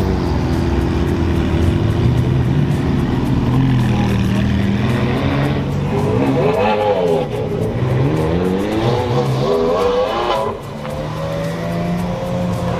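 Ferrari sports cars pulling away one after another, their engines revving with pitch rising and falling repeatedly in the middle of the stretch, then settling near the end.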